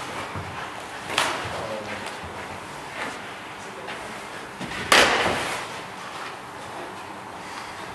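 Sharp slaps and thuds from two fighters sparring with training knives: a sudden hit about a second in, a lighter one around three seconds, and the loudest a little before five seconds.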